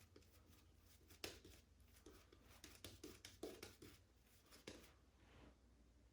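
Faint, irregular soft strokes and light clicks of a shaving brush and lather being handled, close to near silence.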